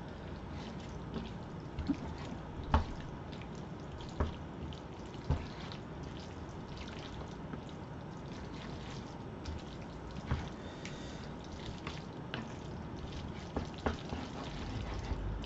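Wet, close-up eating sounds of jjajangmyeon noodles in black bean sauce being chewed and slurped, with scattered small clicks, several seconds apart, over a steady low background hiss.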